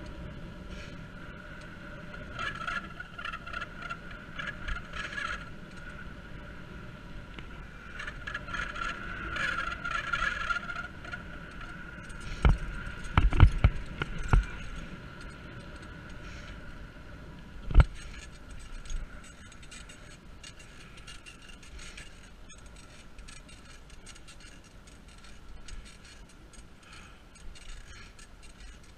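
Bicycle rolling over asphalt, with a cluster of loud knocks and rattles about halfway through and another single knock a few seconds later as the bike jolts over broken pavement. A steady high whine runs underneath.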